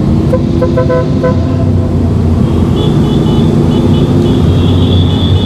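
Motorcycle engine running steadily under way. A thin high whine comes in about halfway through and holds.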